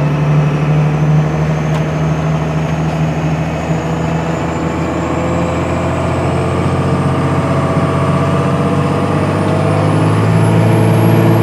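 Truck engine and road noise heard from inside the cab while driving, towing a trailer: a loud, steady low drone, with a faint high whine that slowly rises in pitch.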